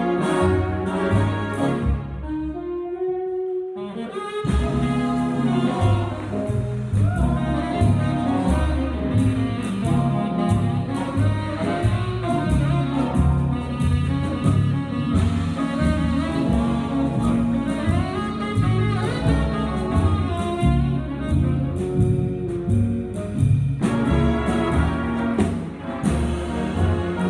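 Jazz big band playing, with saxophones and brass over piano, electric guitar and drums, and a saxophone solo through the middle. About two seconds in, the band thins briefly to a single held note before the full ensemble comes back in.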